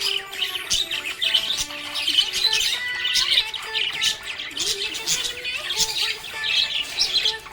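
Small pet parrots chirping continuously in a dense chatter of short, overlapping calls, over background music with held notes.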